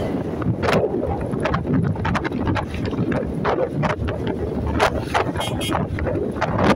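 Wind buffeting the microphone of a moving motorcycle, with engine and road noise underneath, in irregular gusts.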